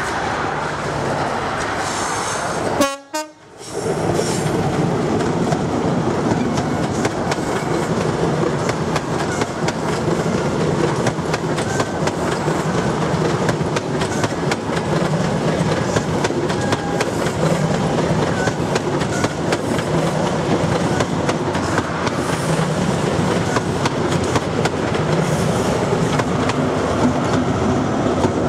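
A British Rail Class 43 InterCity 125 (HST) passes close by. The power car's diesel engine is running under power, followed by a long, steady clatter of wheels over the rail as the coaches go past. The sound cuts out briefly about three seconds in.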